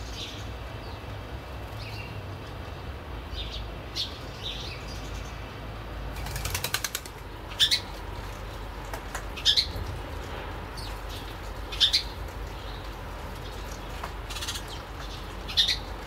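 Sparrows giving short, high chirps every couple of seconds, with a quick flutter of wings about six seconds in, over a low steady background rumble.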